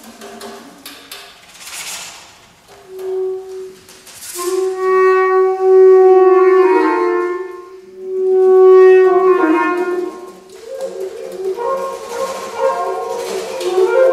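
Saxophone quartet (soprano, alto, tenor and baritone saxophones) playing a contemporary piece built on Arabic maqam modes. It starts quiet and sparse with a few short notes, then long, loud held notes swell in about four seconds in, bending down in pitch. A second loud swell follows, and the voices thicken into a denser texture near the end.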